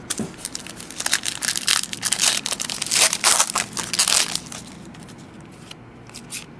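The wrapper of a trading-card pack crinkling as it is torn open and crumpled by hand: a dense run of crackles for about four and a half seconds, then only light handling.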